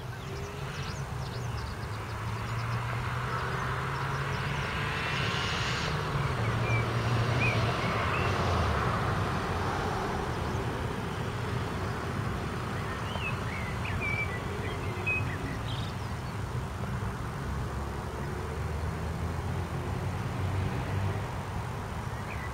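Steady rumble of road traffic, swelling as a vehicle passes about five to nine seconds in, with a few short bird chirps.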